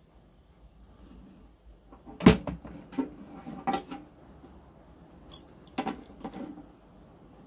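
Metal clinks and knocks as the sheet-metal body of a 1930s Pulvis-R powder duster is handled and an adjustable wrench is fitted to a nut on its shell. The first two seconds are quiet, then come a sharp knock about two seconds in and a string of lighter clinks.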